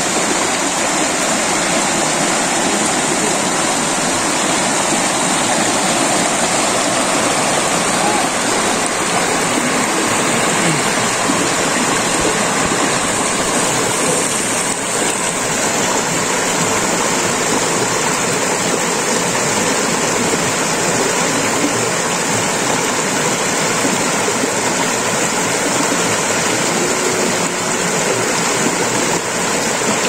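Shallow rocky stream flowing over and around boulders in small riffles: a steady rush of running water.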